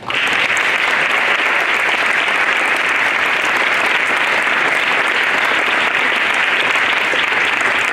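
An audience applauding steadily, many hands clapping at once, beginning suddenly.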